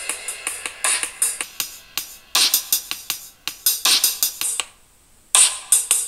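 Electronic music with a steady drum beat playing through a Samsung Galaxy S4's built-in loudspeaker. The music drops out briefly about five seconds in, then starts again.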